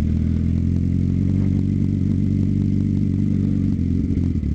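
Suzuki GSX-R 750 inline-four motorcycle engine running steadily while riding, its note changing about four seconds in.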